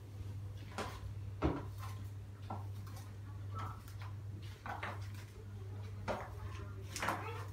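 A steady low hum, with a few scattered short knocks and clatters over it, the loudest about one and a half seconds in.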